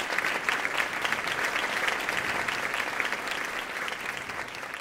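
Audience applauding: a dense patter of many hands clapping that slowly fades toward the end.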